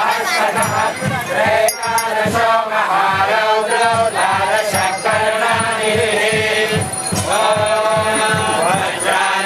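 Devotional kirtan: a group chanting a melody to a steady drum beat, with small hand cymbals ringing on the beat.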